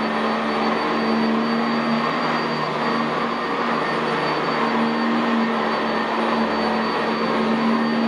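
Sanitaire SC679J commercial upright vacuum cleaner running steadily as it is pushed over carpet, its wooden brush roll on the pile. The motor gives a steady drone with a thin high whine, and its low hum swells and fades a little over the strokes.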